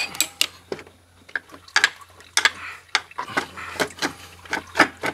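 Irregular metal clinks, knocks and rattles as the Audi 3.0T's supercharger is rocked loose and lifted out of the engine bay with wrench extensions used as handles.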